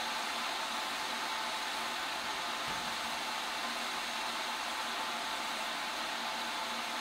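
Steady hiss of steam escaping from a standing SR Schools class 4-4-0 steam locomotive, No. 926 Repton.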